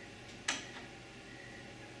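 Thin wooden organizer pieces clicking and tapping together as they are handled and fitted, with one sharp click about half a second in, over a faint steady hum.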